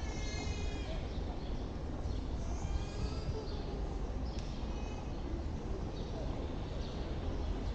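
Low, steady rumble of a car rolling slowly over a paved street, heard from a microphone on the car's roof. A high bird call sounds near the start, with scattered faint calls after it.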